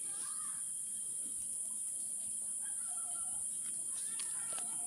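Steady high-pitched drone of insects, with faint clucks and short calls of chickens scattered through the middle and latter part.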